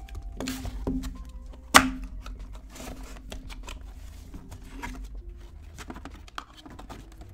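A sealed hockey card box being opened and handled: cardboard scuffing and rustling with scattered clicks and taps as the inner case is slid out, and one sharp knock about two seconds in.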